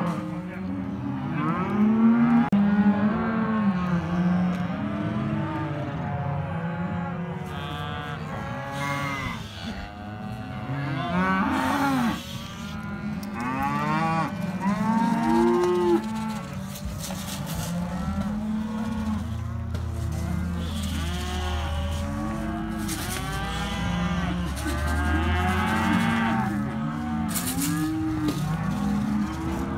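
A herd of penned cattle bawling and mooing, many overlapping calls one after another throughout.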